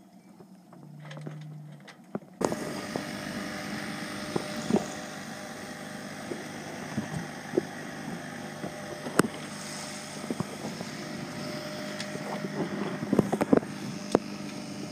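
Sailboat's motor running steadily under way, with water and wind noise on the microphone and scattered knocks. It starts abruptly about two seconds in, after a quiet opening.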